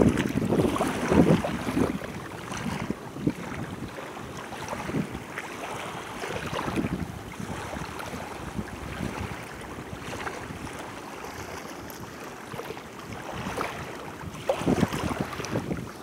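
Small waves lapping at the water's edge, with wind buffeting the microphone. It is louder in the first couple of seconds and again near the end.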